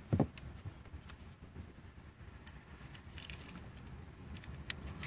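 Hands handling a self-adhesive foam draft-excluder strip: scattered light clicks and a brief rustle a little after the middle, with a low thump just after the start. A steady low rumble of wind on the microphone lies underneath.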